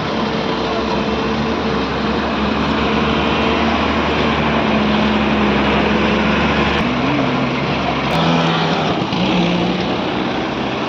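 Engines of road-paving machinery running steadily, their pitch briefly rising and dropping about seven to nine seconds in.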